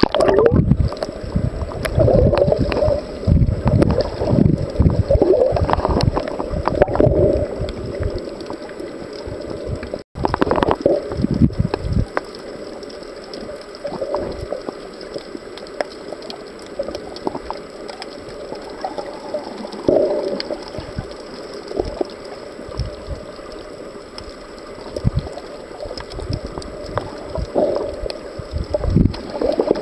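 Sea water sloshing and gurgling around a camera held at and just under the surface, muffled and choppy for the first ten seconds or so, with a brief break about ten seconds in. After that comes a quieter, steady underwater rush with occasional swishes.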